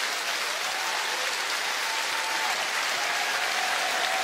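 Large studio audience applauding steadily at the end of a stage performance, a dense even clapping.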